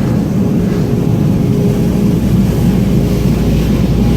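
Automatic car wash machinery running, heard from inside the car cabin: a steady low rumble with a faint hum.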